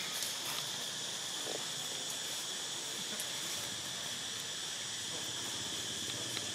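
Steady high-pitched insect drone, like cicadas or crickets, with a few faint clicks.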